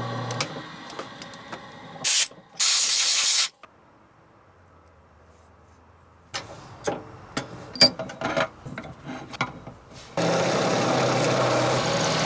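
Drill press drilling quarter-inch holes in an O1 tool steel knife blank: the machine is running at first and fades, two short loud hissing bursts follow, then a spell of scattered metallic clicks and taps, and near the end the drill runs and cuts into the steel again.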